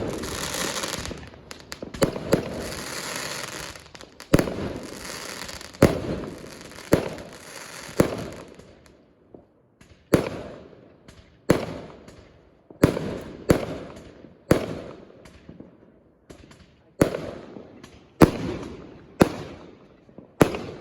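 Fireworks going off. A hissing crackle fills the first several seconds, then comes a steady run of sharp bangs about one a second, each with a short fading tail.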